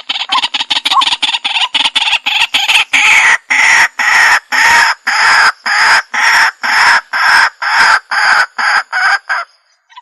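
White-breasted waterhen calling: a quick run of harsh notes that, about three seconds in, settles into a steady series of loud harsh calls about two a second, breaking off briefly near the end.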